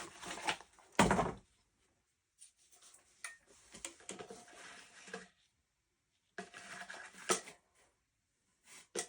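Handling of a 12 gauge bullpup shotgun and a spare box magazine, with a loud clack about a second in, then scraping and rubbing broken by sharp clicks, as the magazine is tried against the gun.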